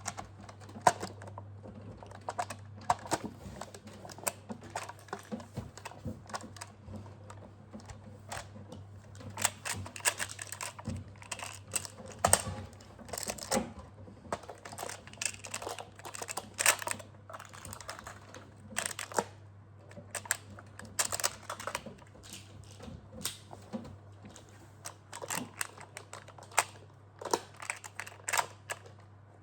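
Magnetic building tiles clicking and clacking as they are handled and snapped together, in irregular sharp clicks, over a steady low hum.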